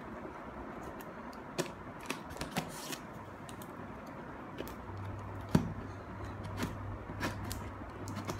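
Fingernails and scissor tips picking and scraping at the packing tape on a cardboard box: scattered clicks and taps, with one sharper knock about halfway through.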